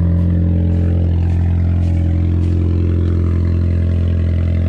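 BMW E30 engine running at a steady idle.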